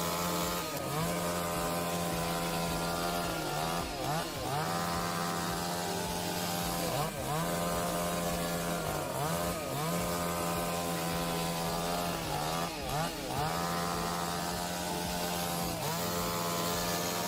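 Chainsaw running at a steady high pitch that dips briefly and climbs back up several times.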